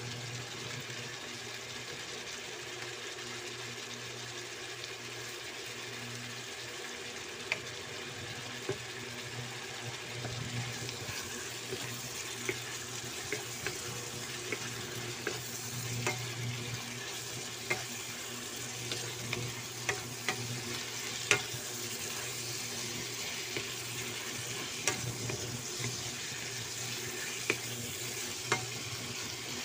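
Chicken pieces sizzling in a nonstick wok while a wooden spatula stirs and scrapes through them, with many short ticks of the spatula against the pan over a steady hiss and low hum.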